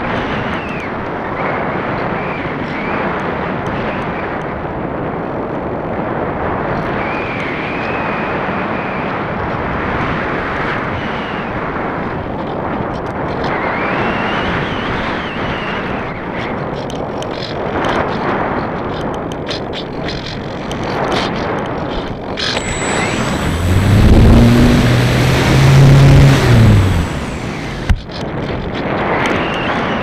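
Airflow rushing over the onboard camera microphone of a Parkzone Radian electric glider in flight, swelling and easing. Past the middle, the glider's electric motor runs for about four seconds, a low hum that rises and falls with a steady high whine above it, the loudest sound here; then it cuts off and a sharp click follows.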